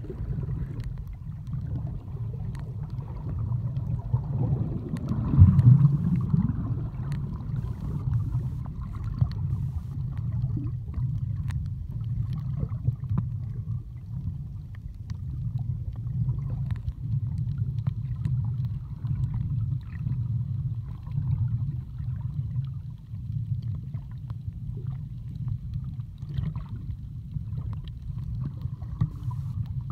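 Underwater sound heard through a camera held below the surface while snorkeling: a steady, muffled low rumble of moving water with scattered faint clicks, and a louder surge about five seconds in.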